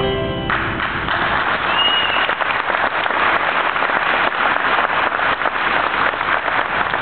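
Crowd applauding, beginning about half a second in as the last held notes of a song die away. A short high note sounds through the clapping about two seconds in.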